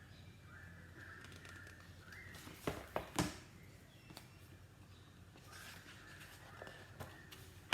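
A few sharp clicks or taps, a cluster about three seconds in and another near the end, over faint room tone with faint high chirps.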